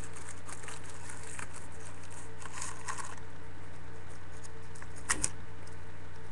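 Light rustling and crinkling of adhesive tape and plastic being handled, with two quick knocks about five seconds in, over a steady low hum.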